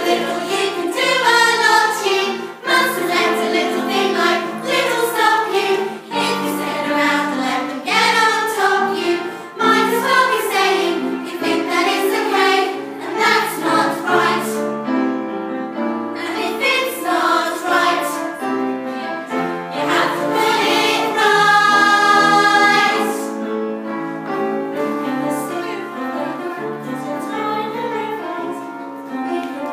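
A group of women singing together in chorus, a quick melody with many short notes, then a long held note about two-thirds of the way through.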